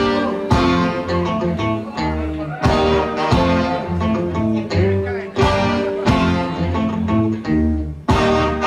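Live rocksteady band playing an instrumental passage, with guitar and a strong low end and regular accented hits, and no singing.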